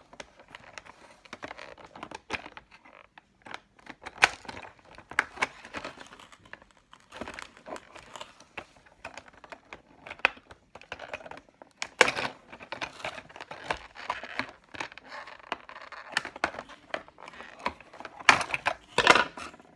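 Scissors snipping and plastic toy packaging crinkling as parts are cut free, with irregular clicks and rustles and a few louder clacks about midway and near the end.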